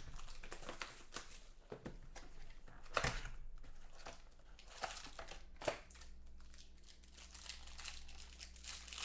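Rustling and handling of a cardboard trading-card box, then a plastic-wrapped football card pack being crinkled and torn open. There are scattered short rustles, with louder ones about three seconds in and again near six seconds.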